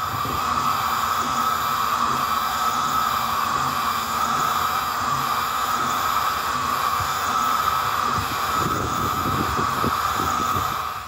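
Algolaser DIY kit 5 W diode laser engraver running while it engraves: a steady whine and hum from the laser module and the stepper motors driving the head back and forth, with some rougher rattling near the end.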